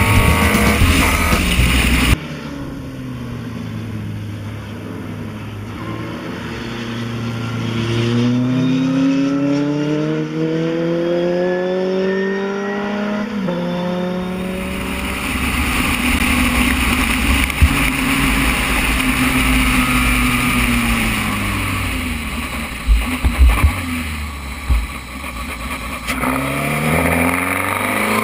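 Formula Renault 2.0 single-seater's engine at racing speed. The revs climb and drop back sharply at each upshift, heard partly from the cockpit and partly from beside the track.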